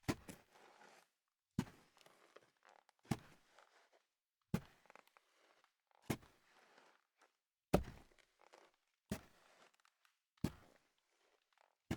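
Slow footsteps: nine sharp footfalls evenly spaced about one and a half seconds apart, each followed by a brief softer rustle.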